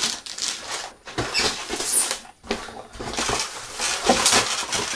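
Packaging rustling and crinkling, with light clicks and knocks, as items are handled and unwrapped. The sound comes in uneven bursts with short pauses.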